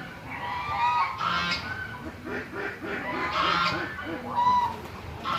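Several geese honking over one another, with a quick run of short, lower calls in the middle.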